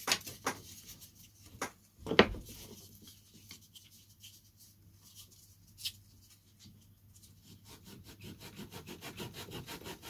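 Balsa-wood fuselage side being sanded by hand with a metal sanding block: a few light knocks as it is set against the work, the loudest about two seconds in, then quick back-and-forth rubbing strokes, about five a second, growing louder toward the end.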